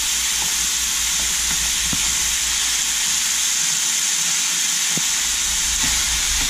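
Ground beef, still partly frozen, sizzling steadily as it fries in a saucepan, while a plastic spatula stirs and breaks it up with a few light knocks against the pan.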